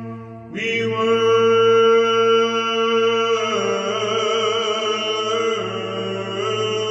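Background Orthodox chant music: long held sung notes over a steady low drone, a new note coming in about half a second in and the melody stepping to a new pitch partway through.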